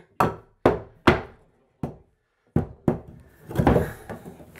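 Hammer blows on a 2x4 wooden blocking piece between wall studs: three quick strikes and then one more. After a short pause come a couple of knocks and handling noise.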